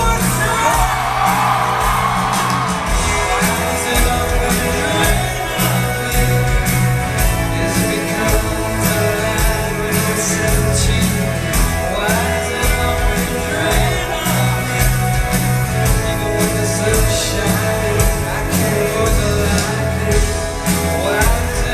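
Live rock band playing, with drums keeping a steady beat under guitar and bass, singing, and shouts from the crowd.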